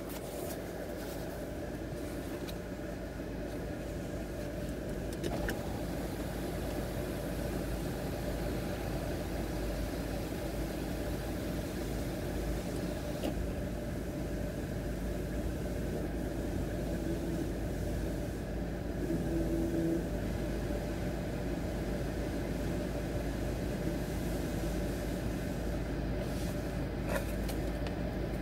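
Steady low mechanical drone with a hiss, heard from inside a car's cabin in a Belanger car-wash tunnel: the car running with the tunnel's wash equipment working around it.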